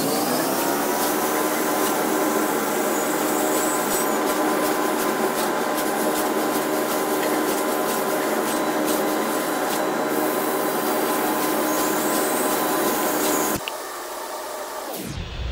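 Fiber laser cutting machine running: a steady whine with a hiss over it. It cuts off abruptly about two seconds before the end and gives way to a quieter hiss.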